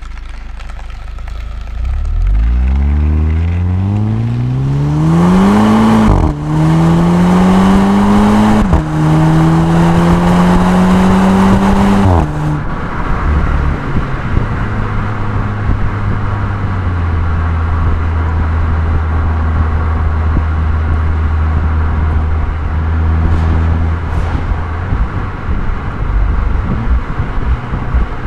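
A 2012 VW GTI's stock 2.0-litre turbo four-cylinder exhaust, picked up at the rear hatch, pulls away from a stop and accelerates hard through the gears. The pitch climbs, drops at upshifts about six and nine seconds in, and climbs again. About twelve seconds in it eases off to a steady low cruising drone with road noise.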